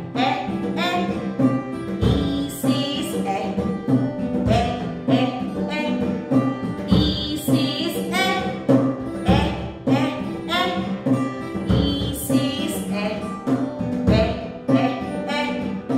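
A children's phonics song for the letter E: a woman singing over a plucked-string accompaniment.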